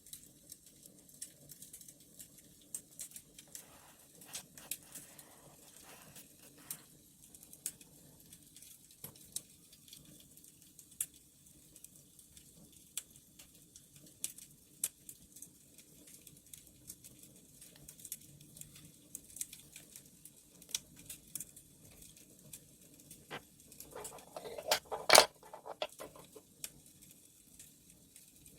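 Wood fire crackling, with many small irregular pops over a low steady rumble. A louder rustling burst with one sharp snap about 24 seconds in.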